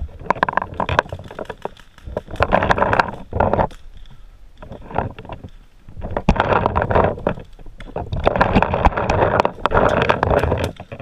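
Paintball markers firing sharp pops, at times in quick strings of several a second, with stretches of loud rushing noise on the helmet camera's microphone.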